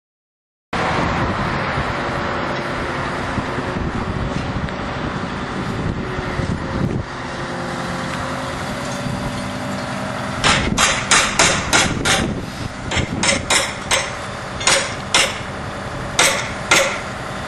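An engine running steadily, then from about ten seconds in a series of sharp, irregularly spaced hammer blows, about fifteen of them.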